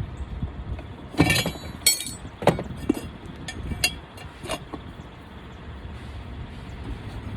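Several sharp metallic clinks and knocks, a few of them ringing briefly, from pliers and tools working a small lawn mower tyre off its rim, over a steady low rumble. The knocks cluster in the first half and die away after about five seconds.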